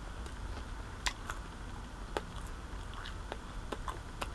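A person chewing a bread roll spread with herb butter: scattered soft mouth clicks and smacks, a few a second or less, over a low steady hum.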